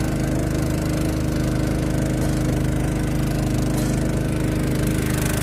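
A small engine idling steadily at an even pitch.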